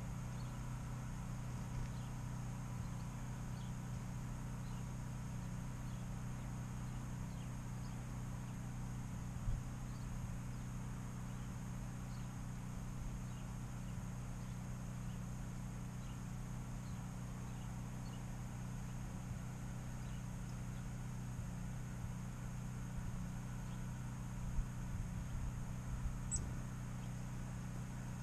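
A steady low mechanical hum, with a few faint, short, high bird chirps, two sharper ones near the end.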